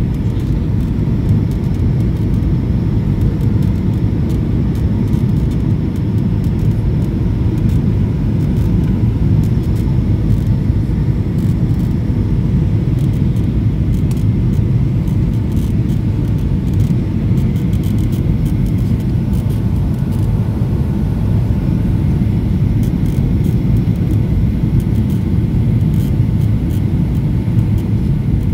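Steady cabin rumble of a Boeing 737-800 on approach with flaps extended, heard from a window seat over the wing, with a faint steady whine above it.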